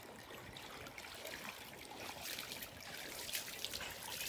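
Spring water trickling from a spout in a stone into a shallow stone-lined pool; faint and steady, a little louder in the second half.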